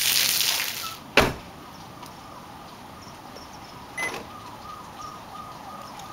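Heavy rain falling in a downpour, a loud steady hiss that fades out about a second in and is cut off by a sharp click. After that the background is much quieter, with faint short chirps repeating several times a second.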